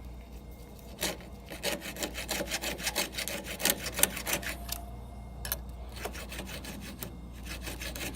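A round file rasps across a chainsaw chain's cutting teeth in quick repeated strokes, sharpening the chain. The strokes start about a second in, come several a second, and stop briefly twice.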